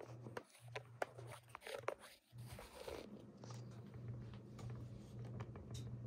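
Low steady hum of a running Minka Aire Spacesaver ceiling fan motor, with scattered faint clicks and crackles of handling, mostly in the first half.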